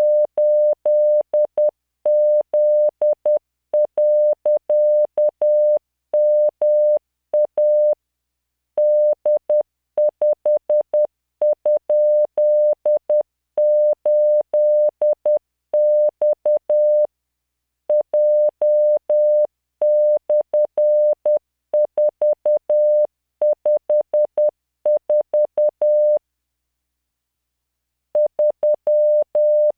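Morse code sent as a computer-generated 600 Hz tone at 10 words per minute: random five-character practice groups of letters, figures and punctuation. Each dot and dash starts and stops with a faint click, and the sending pauses for about two seconds near the end.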